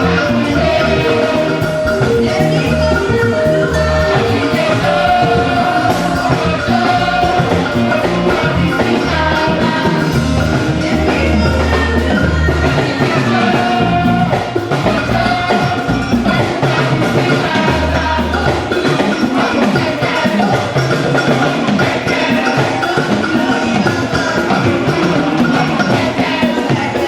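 Gospel music with drums and a bass line playing under held melodic notes.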